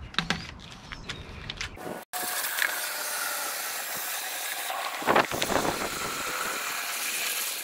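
A stick stirring inside a plastic water jug, scraping in the neck and churning the water to mix diatomaceous earth into it. A few light clicks come first, then a steady rasping from about two seconds in.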